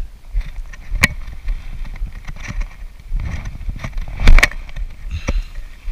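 Handling noise of a cast with a fishing rod and reel: sharp clicks about a second in and again near the end, and a loud rustle of a shirt brushing against the camera about four seconds in.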